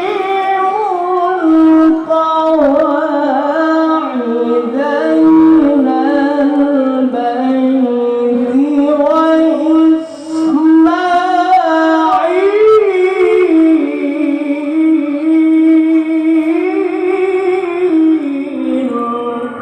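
A male qari reciting the Quran in a high, melodic voice, holding long notes with ornamented turns and a brief breath about halfway through.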